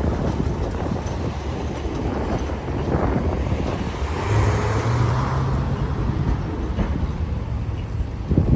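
Street traffic with a tram passing close by: a steady low rumble, with a low hum and a hiss that build for about two seconds midway. A short thump near the end.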